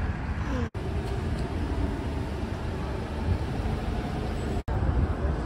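Steady city traffic noise, heavy in the low end, broken by two brief drops to silence, about a second in and near the end.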